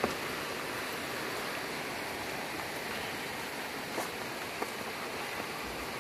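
Steady, even hiss of rain and running water in wet weather, with a couple of faint ticks about two-thirds of the way in.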